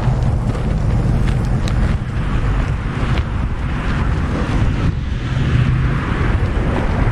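Steady traffic noise from cars on a multi-lane road alongside, mixed with wind rumbling on the microphone.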